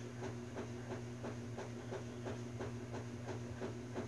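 A small motor humming steadily, with a regular tick about three times a second.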